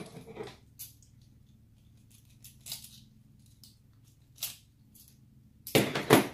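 Small hand tools and plastic and metal RC truck parts clicking, scraping and rattling on a workbench as a wheel is taken off an RC crawler's axle. The strokes are short and scattered, with a louder burst of rattling a little before the end.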